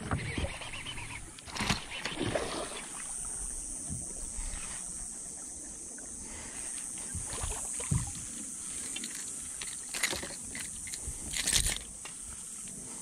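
A hooked bass being brought to the side of a boat and lifted aboard: scattered splashes, knocks and rustles of the fish, line and rod handling over a steady hiss.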